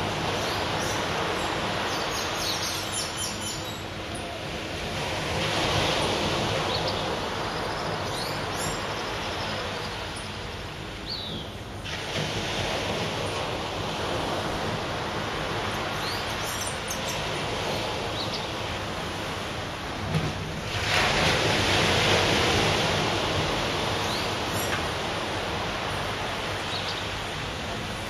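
Surf breaking on a sandy beach: a steady wash of waves that swells louder about six seconds in and again around twenty-one to twenty-three seconds in.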